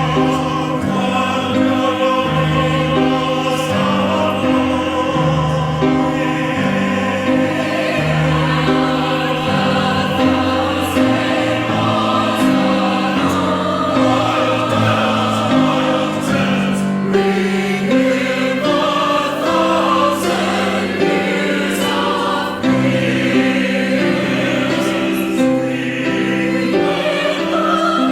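Church chancel choir singing in parts, with several voices holding steady, wavering chords that change about once a second.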